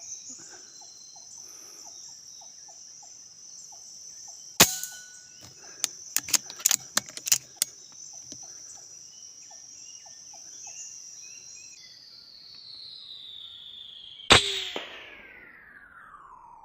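Steady high-pitched insect drone with a sharp crack about four and a half seconds in and a quick run of clicks a second or two later. Near the end comes another loud crack, after which the drone slides steadily down in pitch, as if the sound were slowed down.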